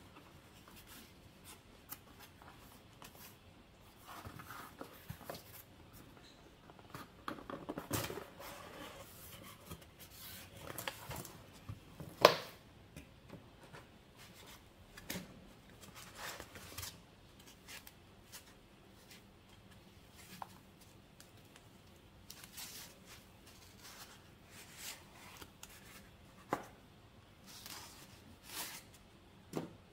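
Corrugated cardboard mailer box being opened and unpacked by hand: flaps scraping and rubbing, foam inserts and a card sleeve sliding, with scattered light taps. One sharp crack stands out about twelve seconds in.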